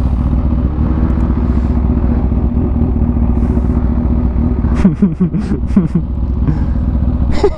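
Kawasaki Ninja H2's supercharged inline-four running at a steady cruise through its aftermarket Competition Werkes exhaust, with a strong, even low rumble.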